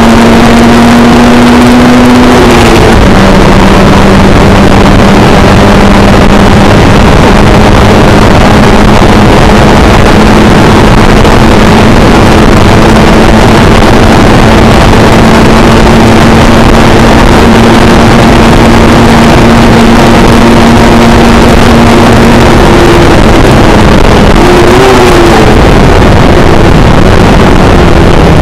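Motorcycle engine running loud at a high, steady pitch under test for a fault that had it spewing petrol, sneezing and coughing. Its pitch drops a couple of seconds in, then holds, and wavers near the end.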